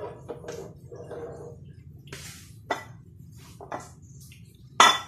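Dishes and a frying pan being handled on a tiled kitchen counter: a few sharp clinks and knocks, the loudest near the end, over a low steady hum.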